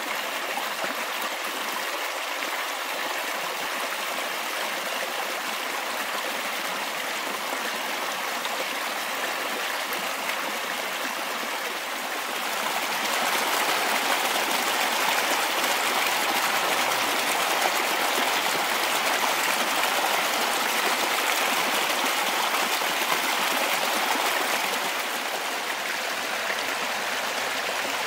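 Small rocky stream running over stones, a steady rush of water that grows louder about halfway through and eases back near the end.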